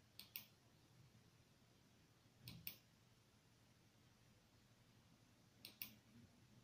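Three quick pairs of sharp clicks against near silence, near the start, about two and a half seconds in and near the end: buttons being pressed on a TV box's handheld remote control.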